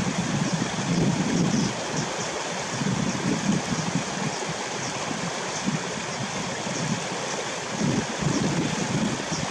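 Steady rushing noise of flowing water, with wind gusting on the microphone. Faint short high ticks come every second or so over it.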